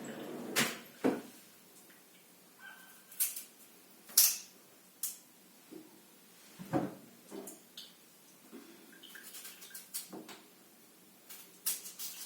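Scattered knocks and clicks of kitchenware being handled, with quiet between them; the sharpest knock comes about four seconds in, and several small clicks bunch together near the end.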